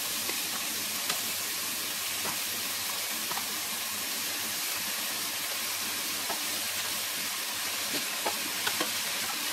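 Onions and shredded cooked chicken sizzling in butter in a stock pot, a steady hiss with a few light ticks as pieces of chicken are dropped in.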